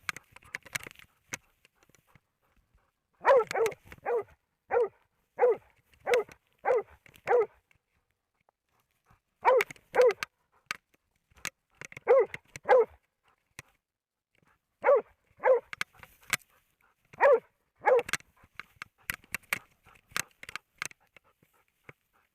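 A moose-hunting dog barking in a run of about seven steady barks, then pairs of barks every two to three seconds.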